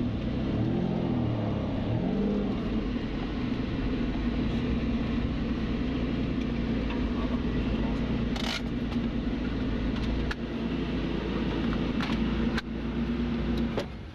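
Lamborghini Diablo V12 with an SVR racing exhaust heard from inside the cabin: the revs rise and fall twice, then the engine runs at a steady speed before the sound cuts off near the end.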